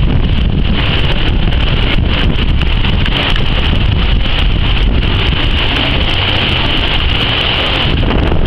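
Storm-force hurricane wind buffeting the microphone with a loud, steady rushing, mixed with swimming pool water sloshing and splashing over the pool's edge.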